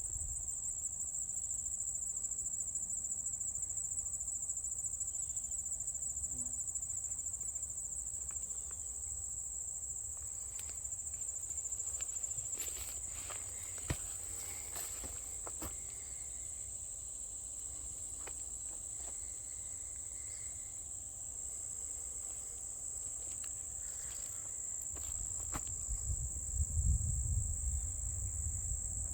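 Insects trilling in a steady, continuous high-pitched chorus. A few faint clicks come midway, and a low rumble comes near the end.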